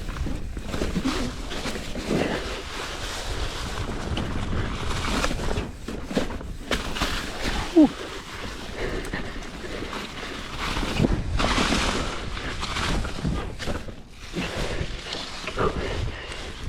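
Hardtail mountain bike climbing a dirt trail: tyres rolling over the dirt with scattered knocks and clicks from the bike, and wind buffeting the microphone.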